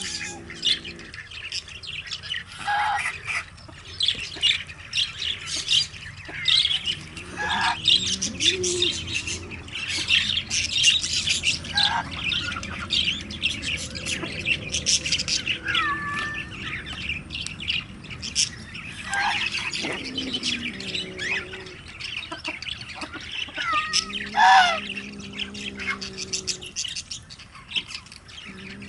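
Birds chirping and squawking over and over, with a few low drawn-out sounds now and then.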